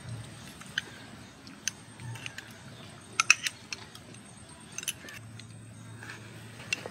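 Scattered light clinks and clicks, one every second or so, with the loudest cluster of three about three seconds in.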